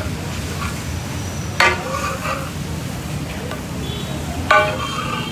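Metal spatula working chicken on a large flat iron tawa griddle over a steady frying sizzle. The spatula strikes the griddle with a sharp ringing clang twice, about a second and a half in and near the end.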